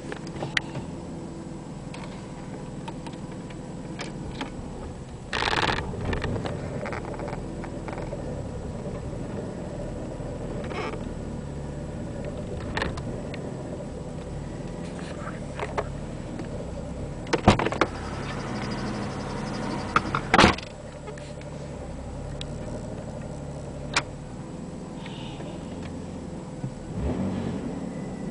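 Car engine idling steadily just under 1000 rpm in Drive with the brake held, heard from inside the cabin as a low hum, in which the owner suspects a noise from the transmission. Several sharp clicks and short bursts of noise break in, the loudest about two-thirds of the way through.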